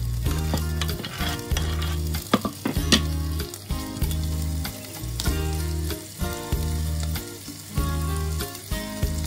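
Broccoli and green beans sizzling in a pot, with a spatula stirring and scraping against the pan in scattered clicks. Background music with a steady bass beat plays throughout and is the loudest sound.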